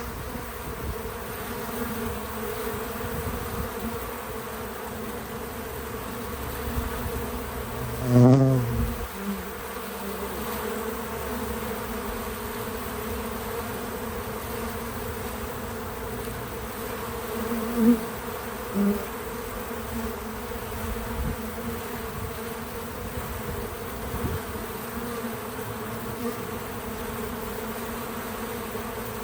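Bees buzzing steadily, a hum of many overlapping wingbeats. About eight seconds in one bee passes close with a loud buzz that wavers in pitch, and two shorter close buzzes come a little after halfway.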